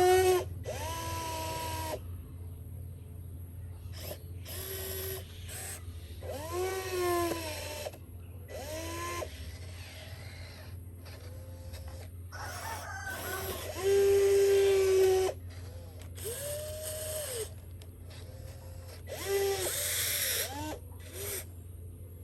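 Small electric motors whining in a series of short runs, each rising in pitch, holding and winding down, with gear grinding over a steady low hum.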